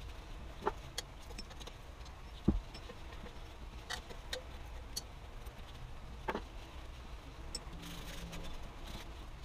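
Scattered metallic clicks and taps of a combination wrench working the dust-shield bolts on a steering knuckle, with one duller knock about two and a half seconds in.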